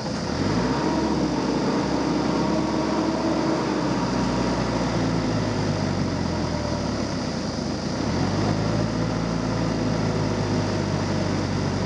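Heavy vehicle engine revving up and running hard under load. It eases off about halfway through, then revs up again about eight seconds in, while a wire pull hauls an overturned backhoe loader back upright.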